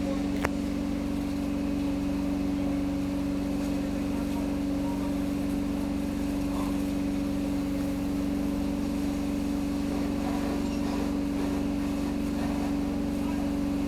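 A steady low mechanical hum, with a single sharp click about half a second in.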